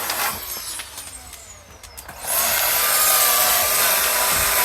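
Electric air blower driving air into a fireplace fire: its whine falls in pitch as it spins down, then about two seconds in it is switched on again with a sudden loud rush of air and a steady motor whine.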